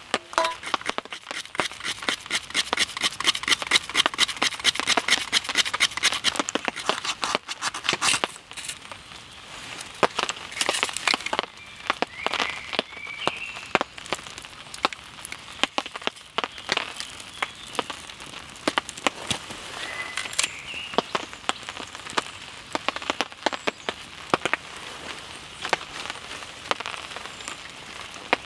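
Crackling and snapping of a small hazel-wood fire being lit: burning tinder catching and dry twigs handled and laid over it. Dense rapid crackling for the first several seconds, then scattered sharp snaps.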